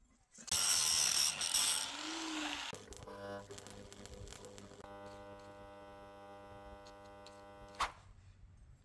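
Electric arc welding: a loud, harsh crackling burst of about two seconds, then the welding machine's steady electrical hum, which stops with a sharp click near the end.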